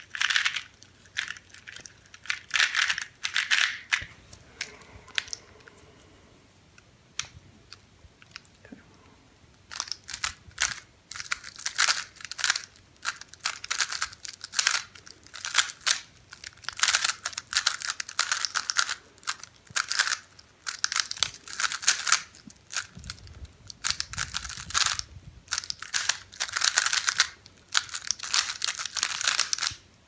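Plastic layers of a 3x3 Rubik's cube clicking and clattering as they are turned by hand in quick bursts of moves. A few bursts at first, then a lull with only scattered clicks, then fast, nearly continuous turning for the rest.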